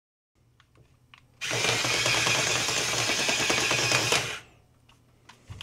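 Disney Spider-Bot toy's geared leg motors whirring with a fast plastic rattle as it walks under remote control, for about three seconds before stopping abruptly; a few faint clicks come before it starts.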